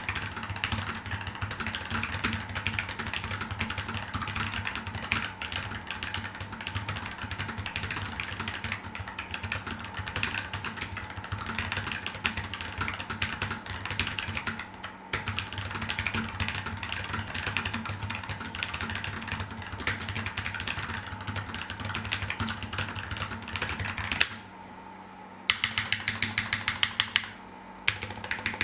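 Fast continuous typing on a Keychron K3 low-profile mechanical keyboard with PBT keycaps and lubed switches: a dense stream of key clicks. The typing stops briefly near the end, then resumes as a few louder, more separate keystrokes. The owner finds the K3 higher-pitched than the Nuphy Air 75, even after lubing the switches.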